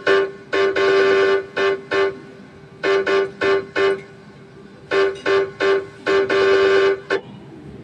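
Horn-like honks in a dance remix: short and long blasts on a single steady pitch, in a stop-start rhythm with no bass underneath.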